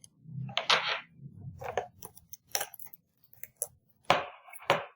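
Scattered clicks and short scrapes of small hard parts handled by hand, as a memory module is worked into a MacBook Pro.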